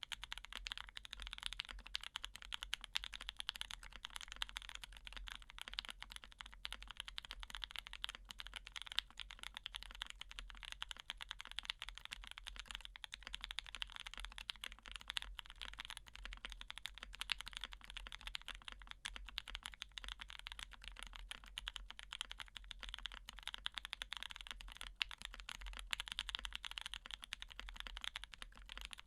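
Continuous fast typing on a custom mechanical keyboard with lubed, filmed Lilac tactile switches on an aluminum plate and GMK keycaps: a dense, steady run of keystroke clacks.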